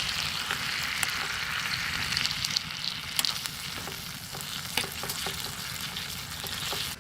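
Canned mushrooms frying in a pan: a steady sizzle with scattered small pops and crackles, which cuts off abruptly at the end.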